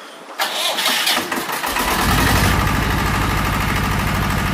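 Kirloskar 20 kVA diesel generator set being started. The starter whirs for about a second, then the diesel catches and settles into a steady, evenly pulsing idle.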